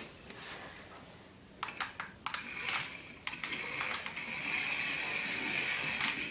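Mini RC car's tiny electric motor whirring at a steady high pitch as the car drives, starting about two and a half seconds in after a few sharp clicks.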